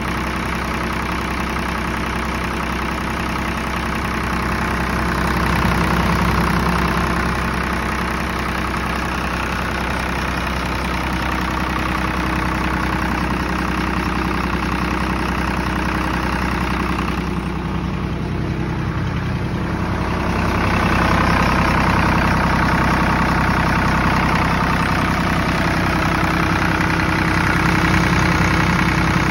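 Kirloskar 3R-1040 three-cylinder diesel engine of a 30 kVA generator set running steadily after a complete overhaul. The sound is briefly muffled a little past halfway through.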